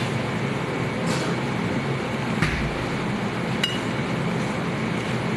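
Steady rumbling background noise like traffic, with three short sharp knocks or clinks, the loudest about two and a half seconds in.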